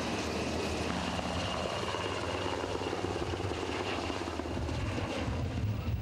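Helicopter flying overhead: a steady, dense low rotor rumble that grows somewhat louder near the end.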